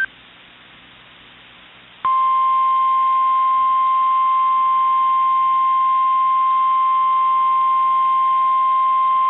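NOAA Weather Radio warning alarm tone: one steady, loud, single-pitched 1050 Hz tone that switches on suddenly about two seconds in and holds. It signals that a new warning broadcast is about to follow. Before it are the very end of a warbling SAME data burst and a couple of seconds of faint radio hiss.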